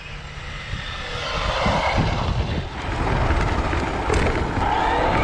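Racing car engine sound, building up over the first three seconds and then running loud, with a rising whine near the end.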